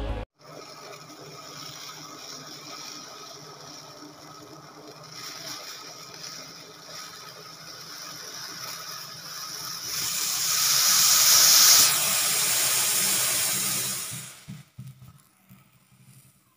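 Milk tea heating to the boil in a steel saucepan on a gas stove: a steady hiss with a low hum. About ten seconds in the hiss swells much louder as the tea foams up, then it dies away near the end.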